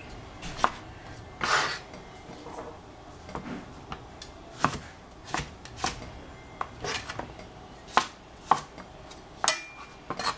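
Chinese cleaver chopping zucchini on a cutting board: a dozen or so sharp knocks of the blade striking through onto the board, spaced unevenly, about one to two a second.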